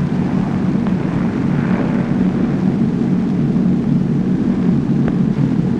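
Steady drone of B-17 Flying Fortress bombers' air-cooled radial engines as the formation passes low overhead after take-off.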